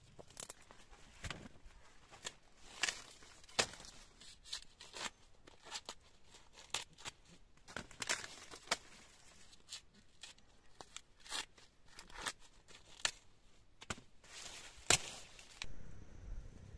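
Dry corn stalks, husks and leaves rustling, with sharp irregular snaps and cracks as ears of corn are harvested by hand. Near the end the snapping stops and a low steady rumble remains.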